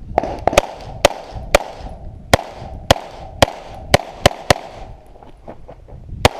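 Pistol fired in a string of about ten sharp shots at uneven intervals, mostly in the first four and a half seconds, with one more near the end.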